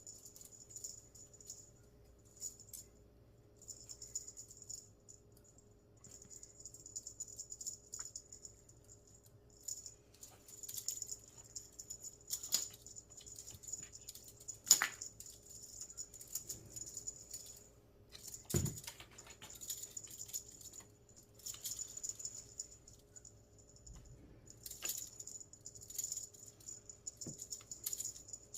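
Cat wand toy rattling and jingling in repeated shaken bursts of a second or two, with a few thumps in between, the loudest about halfway through.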